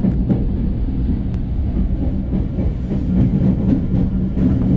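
Train running over yard tracks, heard inside the driver's cab: a steady low rumble and hum, with a few faint clicks of the wheels crossing rail joints and points.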